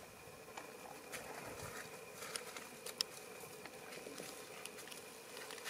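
Faint outdoor ambience: a steady insect drone with scattered light clicks and ticks.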